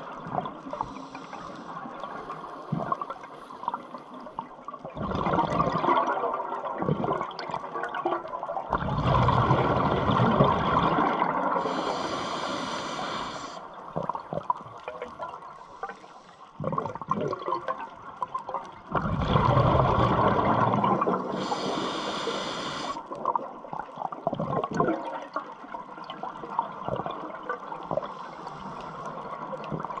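A scuba diver breathing through a regulator underwater: long bubbling surges of exhaled air, twice followed by a short hiss of the regulator on the inhale.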